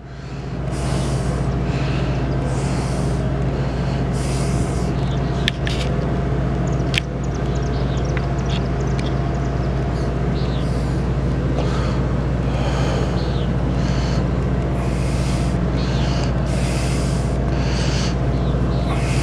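Heavy diesel engine running steadily with a deep, even drone, with short hisses every second or so and a couple of sharp clicks a few seconds in.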